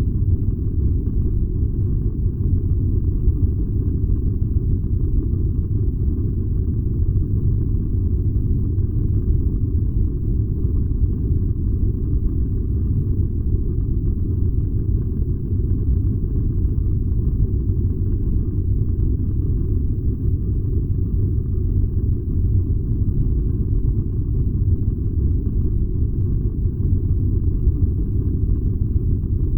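Furnace running with a steady low rumble.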